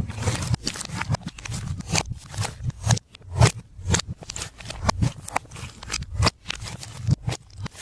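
Glossy slime being squished and kneaded by hand, giving a dense, irregular run of sticky clicks and pops, several a second.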